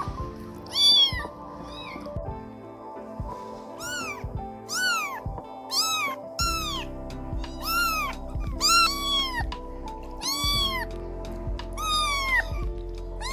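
Kitten meowing over and over, high thin calls about once a second, each rising and then falling in pitch, over background music.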